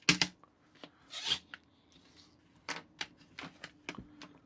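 Hands handling the plastic parts and frame of a toy cap gun on a table: scattered clicks and light knocks of plastic, with a brief rubbing scrape about a second in.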